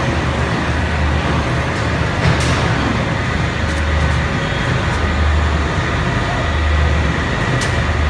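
Airflow continuous carbonization furnace running: steady industrial machinery noise with a low rumble that swells and fades unevenly and a thin steady high tone. A sharp click sounds twice, about two seconds in and near the end.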